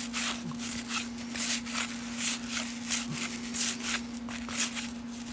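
1989 Fleer cardboard baseball cards being slid and flipped one after another through the hands: a quick run of soft papery swishes and rustles. A steady low hum sits underneath.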